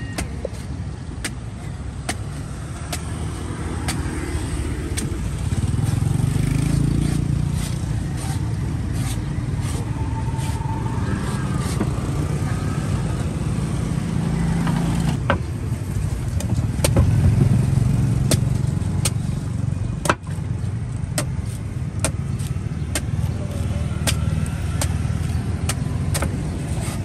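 Street traffic, motorbikes and cars, passing in a low rumble that swells twice, about six and about seventeen seconds in. Over it a cleaver chops into a green coconut in sharp, short knocks, scattered at first and coming faster near the end.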